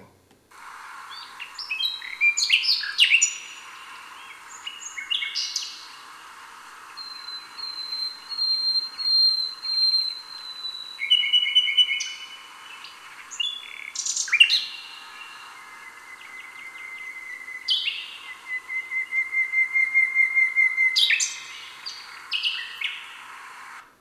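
Two male common nightingales counter-singing, taking turns with short strophes and answering each other with near-identical ones. Several are whistled strophes of repeated notes, the nightingale's 'sobbing', one of them swelling louder for a few seconds near the end, over a steady hiss.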